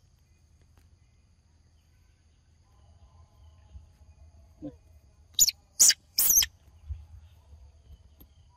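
Young macaque giving three short, shrill, very high-pitched squeals in quick succession a little past halfway through, each sliding down in pitch.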